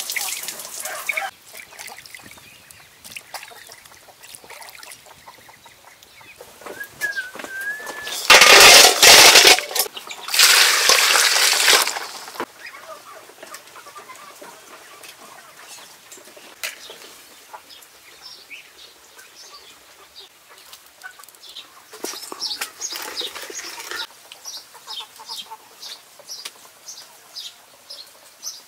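Farmyard poultry clucking in the background, with two loud rushes of water being poured and splashing about eight and ten seconds in.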